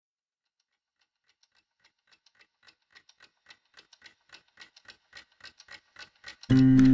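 A clock ticking, roughly four ticks a second, fading in and growing louder as the song's intro. Near the end the music starts suddenly and loudly, with sustained tones.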